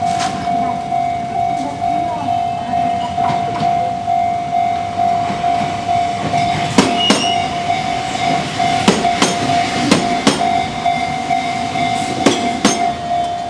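Japanese level-crossing warning bell ringing in a steady, rapidly repeating kan-kan. A Kintetsu electric train passes, its wheels clicking over rail joints in pairs, four pairs in the second half.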